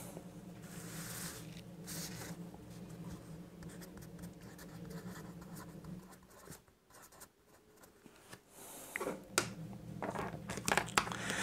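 A pen writing on paper in short scratchy strokes, over a faint steady low hum.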